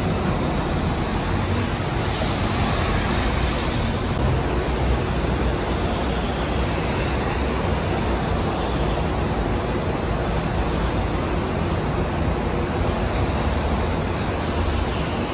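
City buses and cars passing close by in traffic: steady engine and road noise, with a faint high whine.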